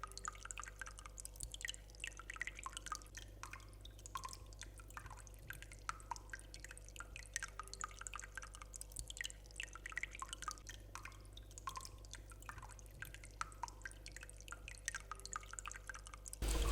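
Irregular drip-like plinks and soft ticks, several a second, over a steady low hum; a much louder, fuller sound cuts in just before the end.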